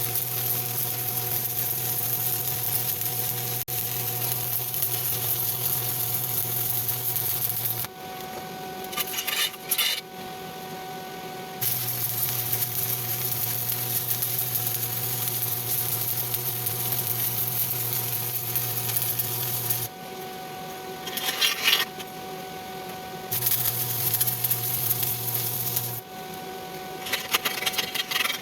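Stick-welding arc crackling and hissing steadily, with a low hum, in three runs of several seconds each. It breaks off between runs for short bursts of scratchy clicking.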